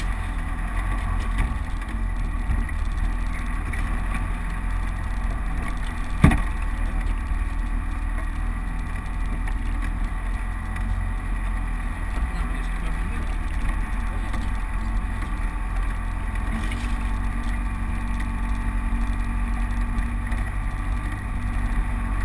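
Land Rover Defender's engine running steadily with a low rumble as it drives along an off-road green lane, with one sharp knock about six seconds in.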